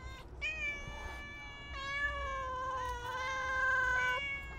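Hungry stray cats meowing one after another in long, drawn-out meows, begging for food. The longest and loudest call comes a little before the end.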